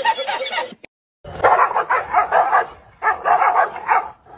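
A small dog yapping in rapid runs of barks, about five a second, in two bursts with a brief pause between. Before that, a man's loud crying voice cuts off within the first second.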